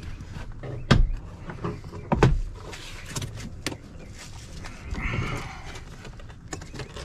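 Plastic retaining clips of a 2019 Chevrolet Impala's rear door trim panel popping loose as the panel is pulled away from the metal door: sharp snaps about a second in and about two seconds in, another fainter one a little later, with lighter clicks and rubbing of the panel between.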